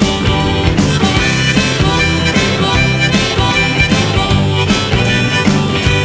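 Background music: an instrumental break in a rock song, led by harmonica over guitar and a steady beat.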